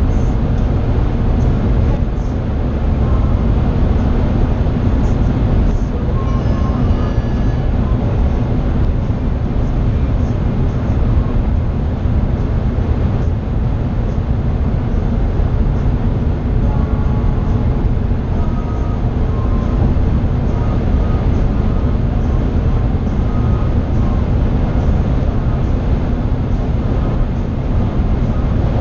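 Steady road, tyre and wind noise inside the cabin of a BMW 330i (E90) at autobahn speed, with the 3.0-litre N52 straight-six running under it.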